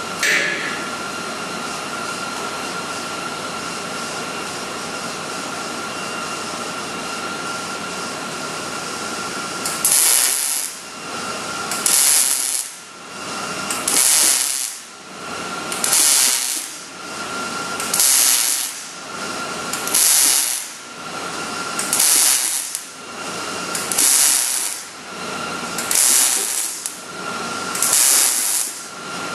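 A stick-welding arc crackling and hissing on steel frame rail, rising and falling in about ten regular surges roughly every two seconds. Before it, for about the first ten seconds, there is a steady hum with a faint high whine.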